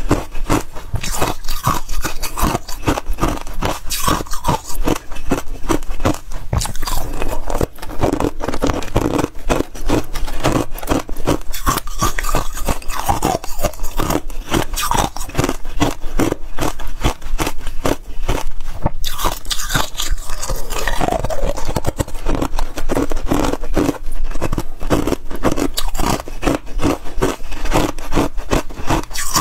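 Freezer frost being scraped and bitten, with dense, rapid crunching and crackling of the ice crystals throughout.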